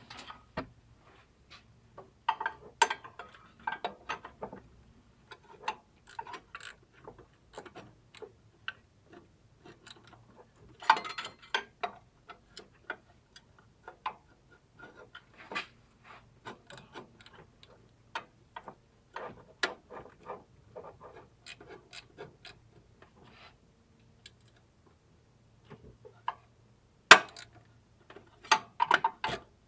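Hand socket ratchet clicking in short, irregular runs as it is swung back and forth on the A/C compressor clutch hub nut, with a few louder clicks near the end.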